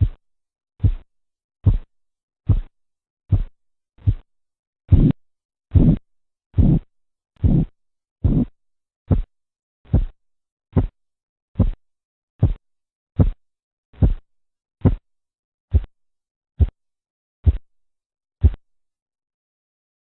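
Korotkoff sounds heard through a stethoscope as the blood-pressure cuff deflates: a regular pulse of short thumps, about 72 a minute. They begin at the systolic pressure, are loudest a few seconds in, soften, and stop near the end as the pressure falls to the diastolic.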